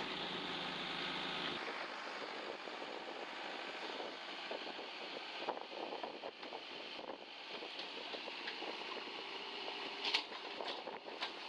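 JCB 3DX backhoe loader's diesel engine running while the backhoe digs soil, with scattered clicks and scraping. The low hum of the engine drops away abruptly about a second and a half in, and a sharp knock comes near the end.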